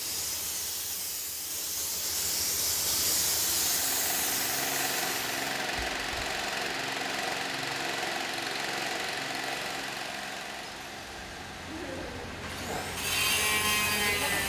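A hose hissing as it is played over a large porcelain tile slab, loudest in the first few seconds and then thinning to a steadier workshop noise with a low hum.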